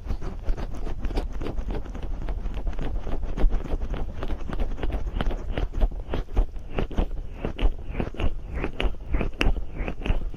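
Fingers slick with massage cream and oil rubbing over the back of an ear microphone, making a dense run of quick, irregular sticky crackles and squelches that grow sharper and busier in the second half.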